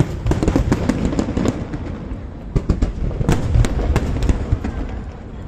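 Fireworks display: aerial shells bursting in rapid, overlapping bangs over a steady low rumble. The bangs ease off briefly about two seconds in, pick up again, and thin out near the end.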